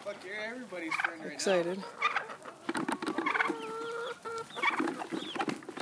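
A flock of domestic chickens clucking and calling, excited at feeding time, with turkeys gobbling among them; one longer held call comes midway.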